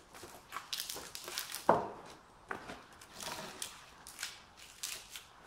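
A log being rolled and shifted by hand into the notches of wooden log bearers: scattered knocks and scuffs of wood on wood, with one louder thump about a second and a half in.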